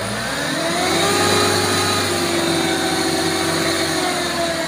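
Dump truck's diesel engine revving up and holding at high speed to drive the hydraulic hoist as the loaded bed tips up to dump soil. The engine pitch climbs over the first second, holds steady, and eases slightly near the end.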